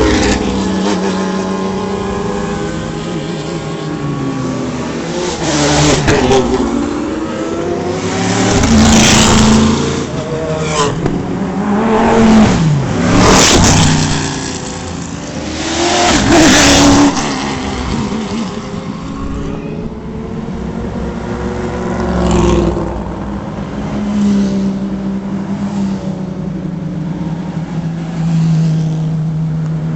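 GT race cars driving past in a slow procession, revving their engines, with about half a dozen close pass-bys whose pitch falls as each car goes by and engines running steadily between them.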